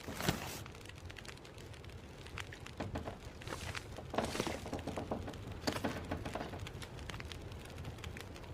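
Kitchen cooking sounds: irregular knocks, clicks and clatter of utensils and cookware being handled. There is a sharp knock just after the start and a busy run of clicks about halfway through.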